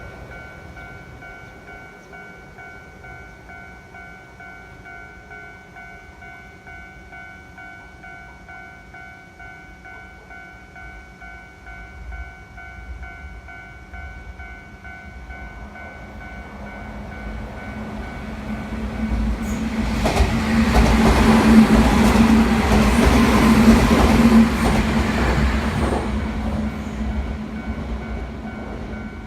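Japanese level-crossing electronic warning bell ringing steadily, signalling the barriers are down. Past the halfway mark a Keio Inokashira Line train approaches and runs over the crossing, loudest for several seconds before fading, while the bell keeps ringing.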